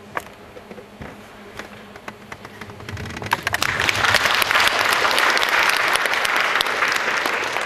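Audience applause in a hall: a few scattered claps at first, swelling to full, steady applause about three seconds in.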